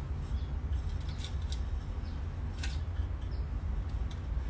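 A few faint, sharp scratching clicks from a pick being worked into the clogged bowl of a bong, over a steady low rumble.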